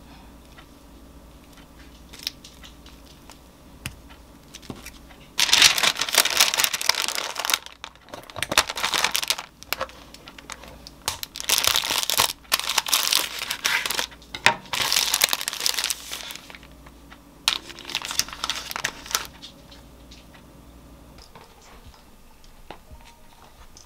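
Brown baking paper being folded and crinkled tightly around a sandwich, in about six loud rustling bursts from about five seconds in to about nineteen seconds, with a few light taps before.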